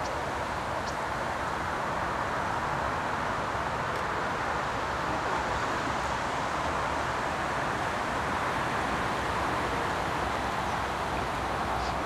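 Steady rushing whoosh of the wings of a very large flock of common starlings in a murmuration, swelling slightly near the end as the flock passes close overhead.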